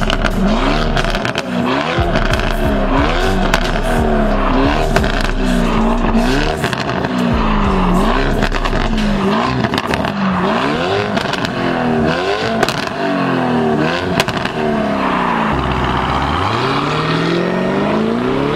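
Stage 2 tuned Lamborghini Urus twin-turbo V8 on a Fi Exhaust valved system with race downpipes, revving up and down over and over, about once a second. Sharp cracks come in between the revs. Near the end the engine pulls in one long rise from low revs.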